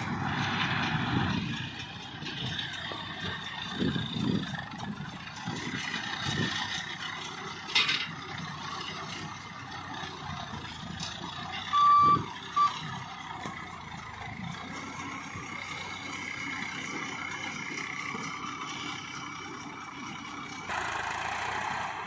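Massey Ferguson tractor's diesel engine running steadily as it pulls a baler through straw, with a short high beep about halfway through, heard twice.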